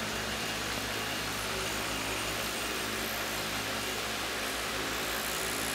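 Surface grinder running with its wheel spinning: a steady hum from the spindle motor under an even hiss.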